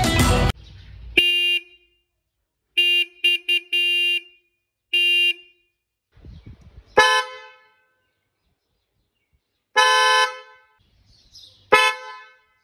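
Motorcycle electric horns honked in turn. A lower-pitched horn gives a blast, a quick run of short toots and another blast. After a pause come three longer honks on a higher, fuller pitch. The horns compared are the bike's stock single disc horn and a fitted Hyundai Creta horn set.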